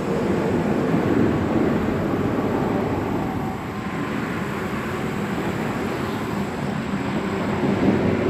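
Steady rumble of nearby highway traffic, swelling and easing slowly.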